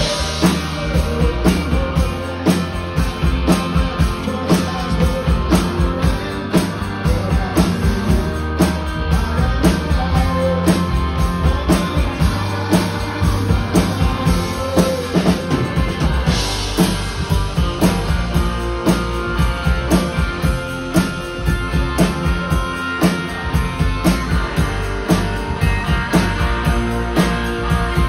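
Live rock band playing, with electric guitars over a drum kit keeping a steady beat.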